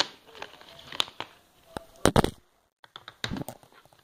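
Plastic disc case clicking and knocking as it is handled and opened by hand, a run of separate clacks with the loudest about two seconds in.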